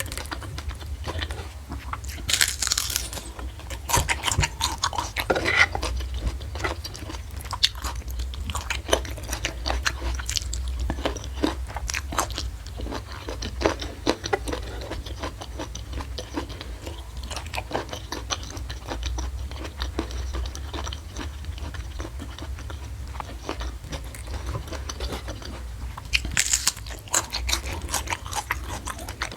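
Close-miked eating: crunchy bites and chewing with many wet mouth clicks, with louder crunching about two to three seconds in and again near the end. A low steady hum runs underneath.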